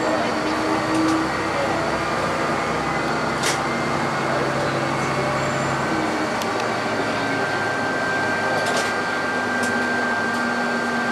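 Diesel railcar running and slowing, heard from inside near the cab: a steady engine drone and running noise, its low engine note dropping away about six seconds in, with a few sharp clicks along the way.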